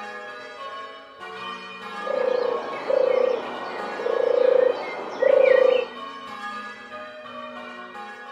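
Church bells rung in changes, a steady run of overlapping strikes. From about two seconds in, four loud held notes with a hiss and small high chirps sound over the bells for about four seconds.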